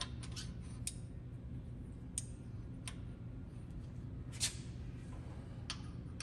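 Small metal parts clicking and tapping as DRO scale support links are fitted onto their support pins on a milling machine's T-slot track: a handful of light clicks, the loudest about four and a half seconds in, over a steady low hum.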